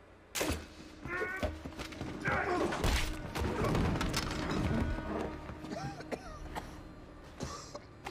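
Film fight sound effects: a few heavy blows and crashes, the busiest about two to five seconds in, over orchestral score music.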